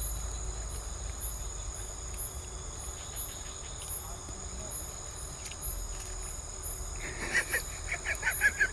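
Night insects calling, chiefly crickets: a steady high-pitched drone with a higher chirp pulsing at a regular rhythm. Near the end, a brief run of short pulsed calls joins in.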